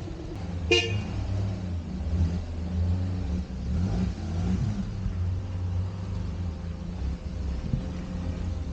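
Motorbike engine running under changing throttle on a climb, its pitch rising and falling, with a short horn beep about a second in.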